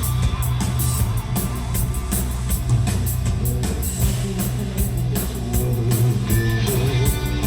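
Live hard rock band playing an instrumental passage: electric guitar to the fore over a steady beat of drums, cymbals and bass. Late in the passage the guitar holds notes with a wavering bend.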